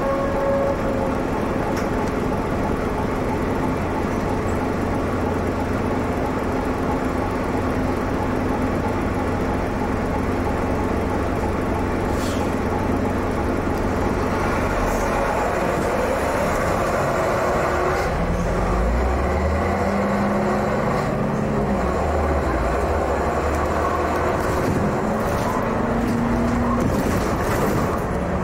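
MCW Metrobus double-decker's Cummins diesel engine running under the upper deck. It holds a steady note for the first half, then rises in pitch and steps several times as the bus pulls away through its gears. A few knocks from the bodywork sound now and then.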